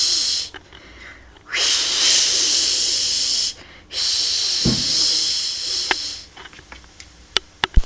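A cat hissing in three long, loud hisses with short pauses between them, a defensive warning at a vacuum cleaner; a thump comes between the second and third hisses, and a few sharp clicks follow near the end.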